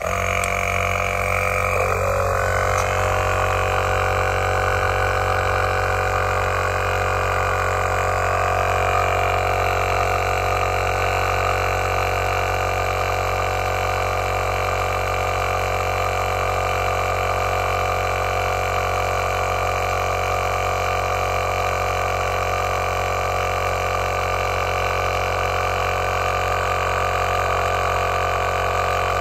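Heyner Big Air 40L 12V portable air compressor switched on with a click and running steadily as it pumps up a flat van tyre, a hum of several held pitches that settles within the first couple of seconds.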